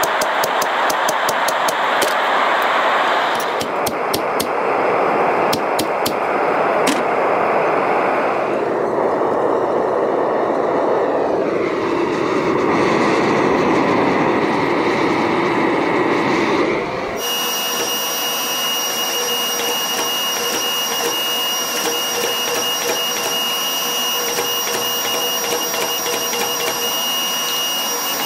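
Hand-hammer blows on red-hot steel, then the steady rush of a gas forge burner. About two-thirds of the way in it cuts to a power hammer running: a steady hum and whine under rapid strikes on the hot steel.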